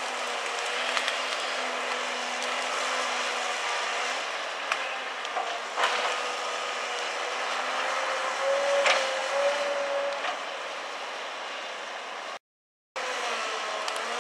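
Link-Belt 210 LX excavator's diesel engine running under hydraulic load, with a wavering whine that rises briefly about nine seconds in, while the log grapple works through felled trees; a few sharp knocks and cracks of wood and steel stand out, the loudest about six and nine seconds in. The sound cuts out for a moment near the end.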